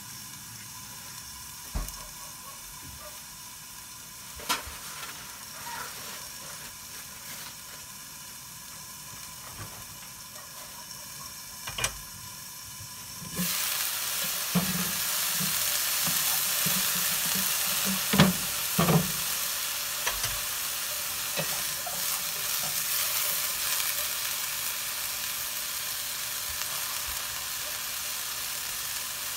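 Mung bean sprouts cooking in a pan without oil: a quieter steady steaming hiss under the lid with a few light clicks, then about halfway through, with the lid off, a much louder sizzle. Chopsticks knock and rattle against the pan as the sprouts are tossed, several times over a few seconds, before the sizzle settles.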